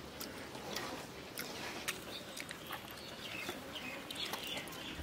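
Scattered soft clicks and smacks of people eating rice and chicken curry with their fingers, with birds chirping in the background.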